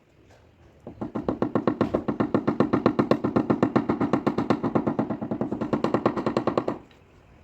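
Rapid, evenly spaced tapping, about ten strikes a second, each with a ringing tone, for about six seconds before it stops abruptly. It sounds like a powered tapping tool knocking down high spots on a car body panel during paintless dent repair.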